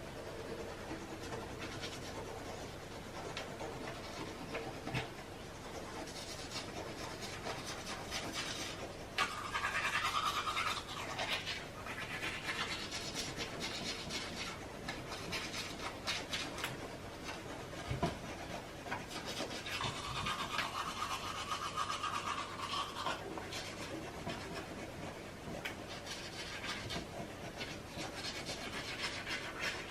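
Teeth being brushed with a toothbrush: continuous scratchy scrubbing, with two louder stretches about a third and two thirds of the way through.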